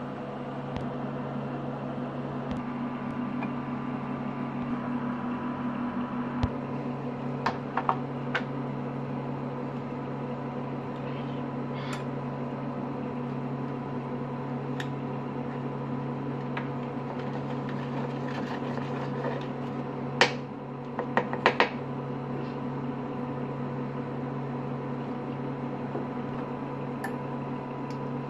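Steady hum of a kitchen appliance fan running, with a few light, sharp clicks and taps, most of them in a cluster about twenty seconds in.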